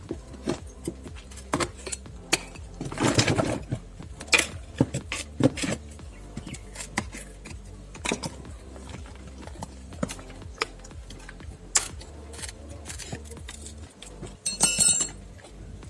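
Plastic wrapping and tape on a long package being cut and pulled open by hand, with scattered crackles, clicks and scrapes and a denser rustle about three seconds in. A brief high squeak near the end.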